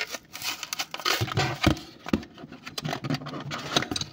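Clear plastic blister being peeled off a cardboard toy-car card: irregular crackling and crinkling of the plastic and tearing of the card's paper, with scattered clicks and small knocks.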